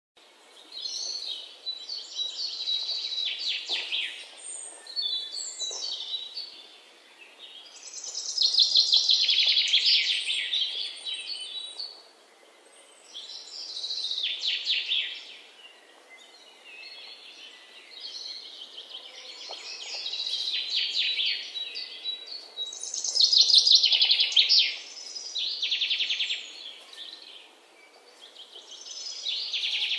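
Songbirds singing in repeated phrases of fast trilled notes, a new phrase every few seconds, some louder than others.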